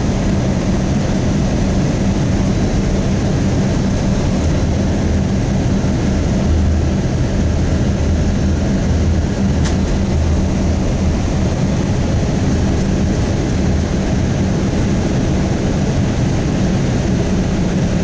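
Cabin noise of an Airbus A320 airliner in flight on its approach: the even rumble of the engines and rushing air, with a steady low hum under it.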